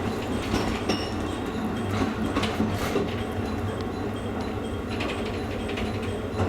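Train running on the Kakogawa Line, heard from inside the car: a steady rumble of wheels on the rails, with occasional short clicks and knocks.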